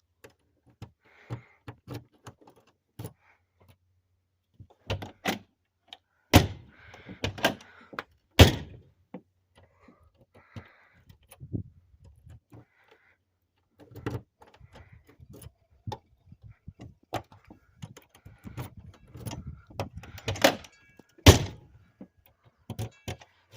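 A newly fitted RV entry door handle and locking latch being worked and tested: a string of scattered clicks and rattles from the lock and handle, with three much louder door thunks among them.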